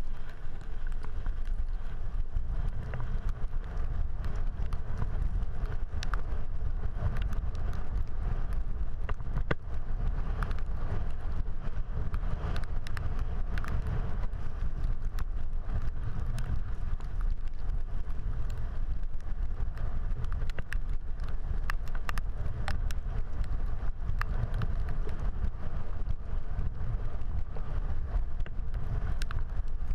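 Wind rumbling on the camera microphone while riding a road bike, with the hiss of tyres on wet pavement and scattered sharp clicks.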